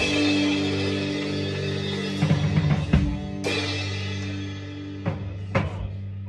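Music with a drum kit: held notes under a handful of drum and cymbal hits.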